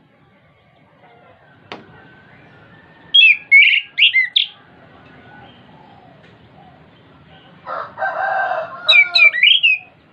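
Chestnut-capped thrush (anis kembang) singing in two loud bursts of quick, sweeping whistled notes. The second burst is led in by a harsher, rasping chatter.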